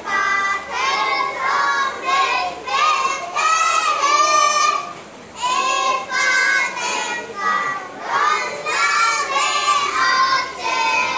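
A small group of young girls singing a song together, in phrases separated by short pauses.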